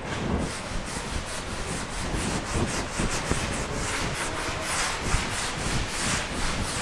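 Blackboard being wiped with a duster: a continuous scratchy rubbing made of many quick back-and-forth strokes across the board.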